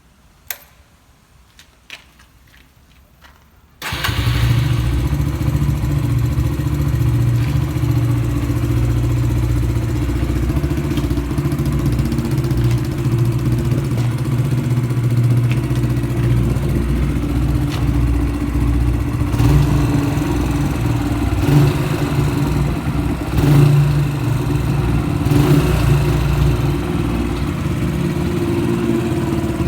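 Yamaha YBR125's single-cylinder four-stroke engine, breathing through an aftermarket Ape 100 muffler with its silencer insert, starts suddenly about four seconds in after a few faint clicks. It then idles with a few light blips of the throttle, the exhaust echoing off the tunnel walls.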